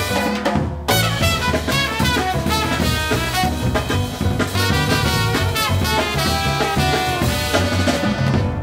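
Jazz quintet playing: trumpet and alto saxophone play the melody together over drum kit, bass and piano. The horns break off briefly a little under a second in, then the full band plays on to a final chord at the very end.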